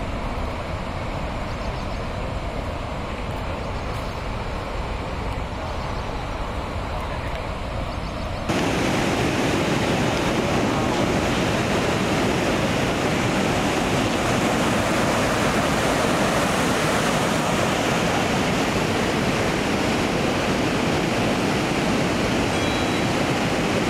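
Steady rush of fast-flowing floodwater, with no distinct events in it. About eight and a half seconds in it jumps suddenly louder and fuller, then holds steady.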